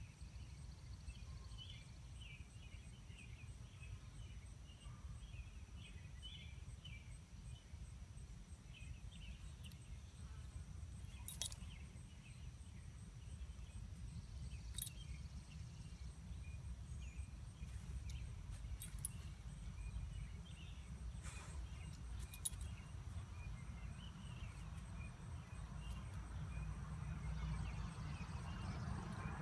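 Quiet outdoor ambience: a steady low rumble with faint scattered chirping through the first ten seconds or so and a few sharp clicks. A rustling noise grows near the end.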